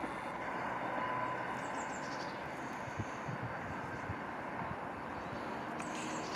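Steady distant road-traffic hum from the M25 motorway, an even wash of noise with a few faint high chirps about two seconds in and near the end.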